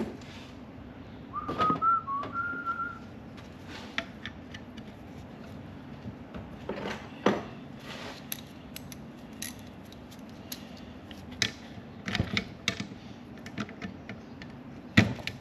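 A person whistles a few short notes about a second in, then hand tools click and clink against metal at irregular intervals while a bracket is taken off the back of an alternator.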